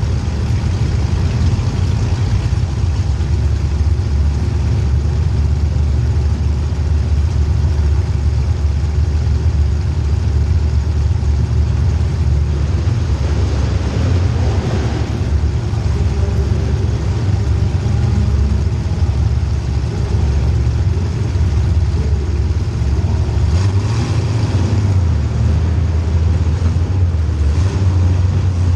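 Race car engine running hard, loud and steady throughout, with small shifts in pitch as it works.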